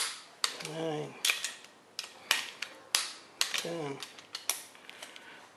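Click-type torque wrench on small-block Chevy cylinder-head bolts, giving sharp clicks at irregular intervals as it releases at its set torque, on the 40 ft-lb second pass of the tightening sequence. Two short creaks falling in pitch come among the clicks.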